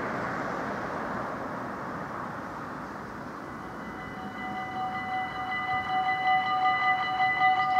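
Level crossing warning bells start about four seconds in, ringing rapidly and repeatedly with a bright, steady pitch: the crossing is activating for an approaching train. Before that, a rushing noise fades away.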